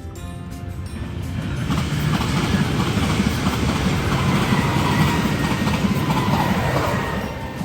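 Loud, dense rumbling noise that swells up over the first two seconds, holds, then eases off near the end, with a faint high squealing tone running through it.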